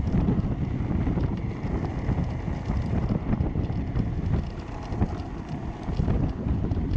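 Wind buffeting the microphone on a moving homemade electric go-kart driven by hoverboard hub motors: a steady, gusting low rumble with no engine note.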